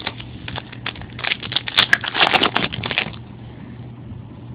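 Baseball trading cards and pack wrappers handled at close range: a run of crinkling rustles and small clicks, busiest in the middle, over a faint steady low hum.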